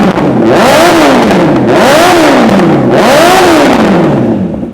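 Honda CBR1000RR inline-four revved hard three times through an Arrow titanium Pro Race exhaust running straight open with no dB killer. Each rev rises and falls in pitch, and the engine drops back to idle near the end. Very loud.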